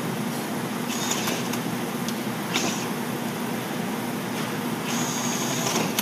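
Steady machinery hum with a constant low tone, broken by a few short high-pitched whines, about a second in, around two and a half seconds in, and a longer one near the end.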